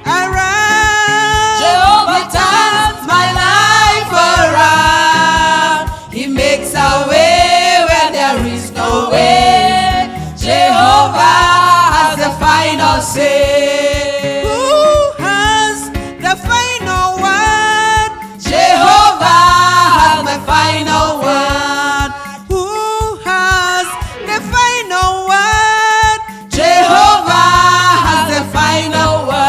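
A gospel praise-and-worship song: singing over instrumental backing, steady throughout.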